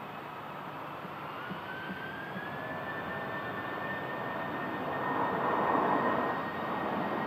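Airbus A320 jet engines spooling up for takeoff: a whine rises in pitch over the first few seconds and then holds steady over the engine roar, which swells to its loudest about five to six seconds in.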